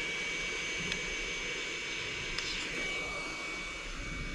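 Heat gun blowing hot air: a steady rushing hiss with a thin, high fan whine, the hiss easing off about three seconds in. The hot air is softening the adhesive of a COF bond on an LCD panel so the strip can be peeled off.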